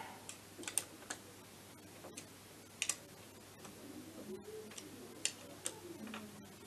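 Sparse, irregular light clicks and ticks of hand tools working at the kick-start pedal of an MBK Spirit scooter engine.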